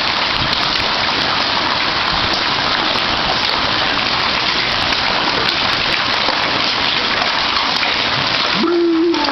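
Hailstones pelting pavement, a garage roof and other objects: a steady dense patter with scattered sharp hits. A voice cuts in near the end.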